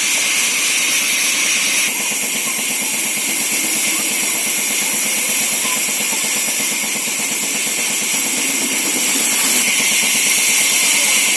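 Timber saw mill machine running with a steady loud hiss and a fast, even rattle.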